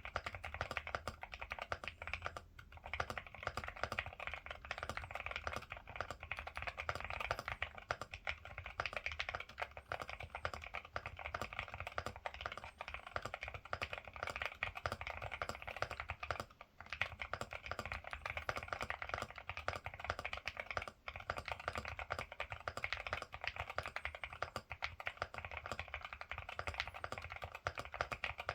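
Continuous fast typing on a Ciddo V65 V2 mechanical keyboard fitted with Akko Rosewood switches: a dense run of key clacks, with a few brief pauses.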